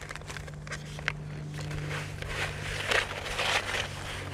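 An OSRAM TyreInflate 12 V tyre compressor being handled while switched off: scattered plastic clicks and rubs, busier about two and a half to three and a half seconds in, over a steady low hum.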